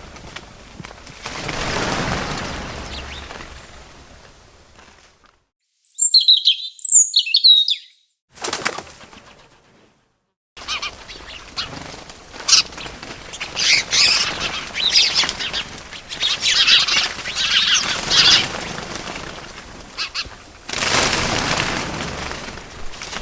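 Edited bird sounds: wing flaps and flutters with short, high chirps, broken by a few brief dead-silent gaps between clips.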